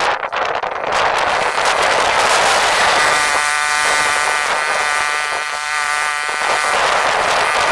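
Motorised mower running steadily as it cuts weeds along a garden path, a constant buzz with a clearer pitched whine from about three seconds in.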